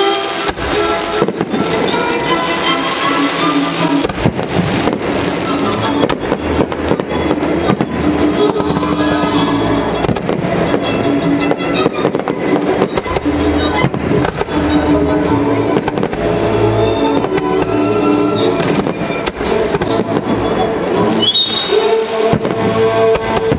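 Aerial fireworks shells bursting in quick succession, many sharp bangs one after another, with music playing loudly underneath.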